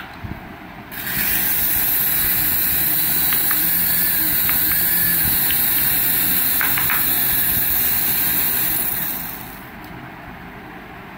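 Small electric motors of a toy RC helicopter spinning its rotor blades as it is held in the hand, a steady high whirring hiss that starts about a second in and winds down near the end, with a few light clicks.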